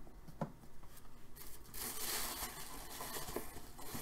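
Paper liner of a cardboard box rustling and crinkling as hands dig under it to pull out a cased hockey puck, after a light click about half a second in.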